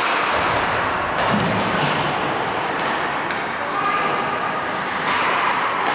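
Ice hockey play in a rink: a steady wash of arena noise with a scatter of sharp clacks from sticks, puck and skates, and faint distant voices.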